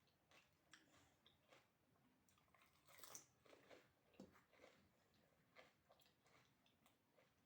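Faint chewing and crunching as fuchka (panipuri) are eaten, the crisp fried shells breaking with short clicks, loudest about three seconds in.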